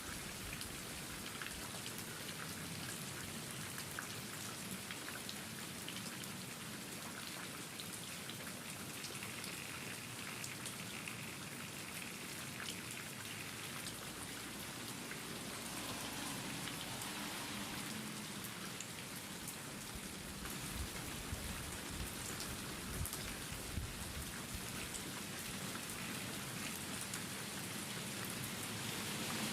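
Steady rain falling, with many separate drops heard as fine ticks; the sound grows fuller and deeper about halfway through.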